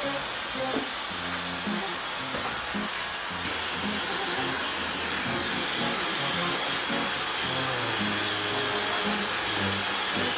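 Hair dryer running steadily, drying a cat's wet fur after a bath.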